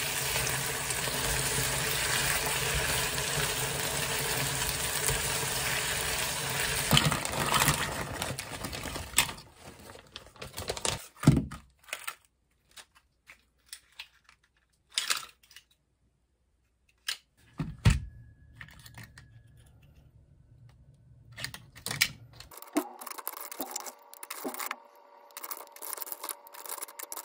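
Meat and vegetables sizzling in a frying pan while stirred with chopsticks, stopping about eight seconds in. Then scattered clicks and knocks with quiet gaps, and near the end mussel shells clicking against each other in a metal strainer as they are sorted by hand.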